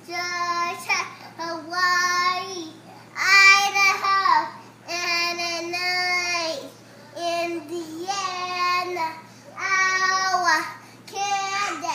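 A young child's voice chanting in a sing-song, one drawn-out word after another at a mostly level pitch with short gaps between: the child reciting the US states in alphabetical order from memory.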